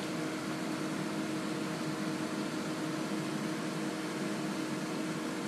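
Hooded salon hair dryer running: a steady rush of blowing air with a low motor hum.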